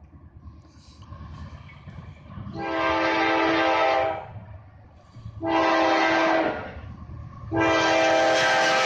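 CSX diesel locomotive's air horn sounding for a grade crossing: a long blast, a shorter one, then a third held on. The low rumble of the approaching train runs underneath and grows toward the end.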